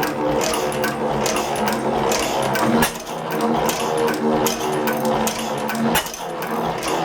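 1903 Gardner single-cylinder stationary engine running on petrol with magneto ignition, a steady rapid clatter of firing and valve gear. It runs a bit fast: the carburettor still wants fine tuning.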